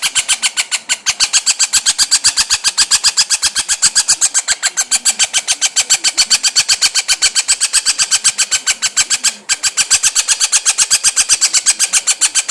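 Princess parrot giving a rapid, dolphin-like chattering call: sharp, even pulses about six or seven a second, kept up without a stop apart from one brief break about nine seconds in.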